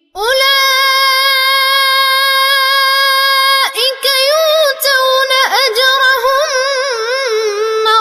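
A boy's high voice reciting the Quran in melodic tajwid chant (Warsh reading). It opens a verse on one long drawn-out vowel, the prolonged madd of "Ula'ika", held for about three and a half seconds, then breaks into a wavering, ornamented melodic run.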